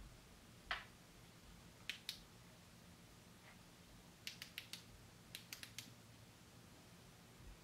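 Faint, sharp clicks from a handheld laser pointer being handled: a few single clicks in the first two seconds, then two quick runs of four or five clicks each.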